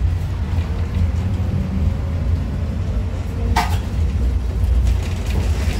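An MUV tram running, heard from inside the passenger saloon: a steady low rumble. A single brief sharp noise cuts in about three and a half seconds in.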